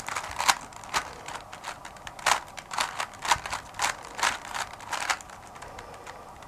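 A 3x3 speedcube being scrambled by hand: irregular plastic clicks and clacks as its layers are turned, thinning out about five seconds in.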